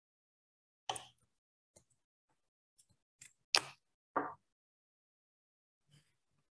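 A handful of short, sharp clicks and taps at irregular intervals, the loudest two about three and a half and four seconds in.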